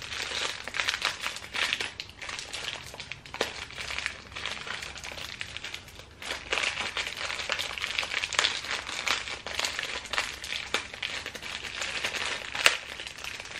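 Plastic snack wrapper crinkling and crackling as it is handled and pulled open, with many small clicks and one sharp click near the end.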